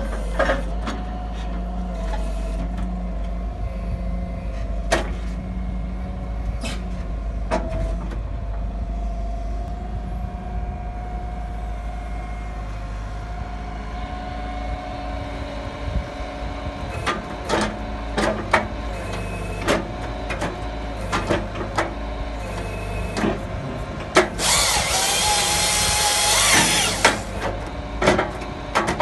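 Hitachi excavator's diesel engine running steadily under load with a hydraulic whine, as its HWP-140 firewood processor head grips and handles logs, with scattered knocks and clatters of wood. About 24 seconds in, a loud hissing rush lasts about three seconds.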